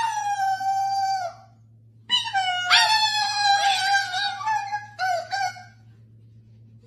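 Cockatoo giving long, howl-like calls, steady in pitch and dipping at the end: one of about a second and a half, a longer one of nearly three seconds, then a short one.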